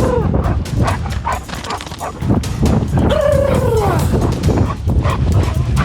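A large dog giving one drawn-out whine about three seconds in, falling in pitch at the end, over steady low rumbling and clicking noise.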